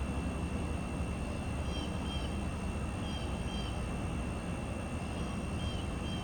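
Steady low background rumble with a faint steady high whine, and short high chirps in pairs repeating every second or so.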